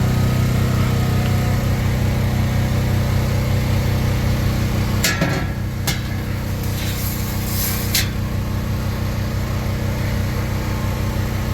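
Engine-driven generator running steadily with a constant low hum. About halfway through come a few sharp metallic clicks and a short rattle.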